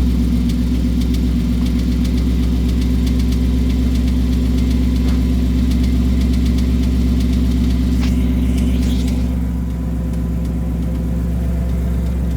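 2018 Mustang GT's 5.0-litre V8 idling steadily just after a cold start, with a faint regular ticking over the engine note. The owner takes this for an engine knock that now happens cold or hot. The idle drops slightly about ten seconds in.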